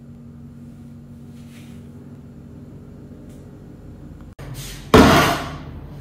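A large black plastic bucket set down on a stone bathroom counter: one sudden loud thud about five seconds in that dies away within half a second, after a low steady hum.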